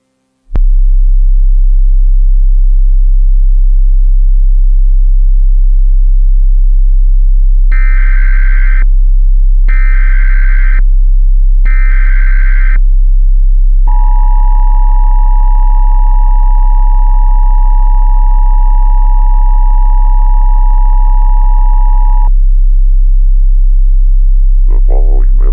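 Emergency Alert System tones over a loud, steady low hum: three short bursts of the SAME digital header, about a second apart, then the two-tone EAS attention signal held for about eight seconds. A voice begins near the end.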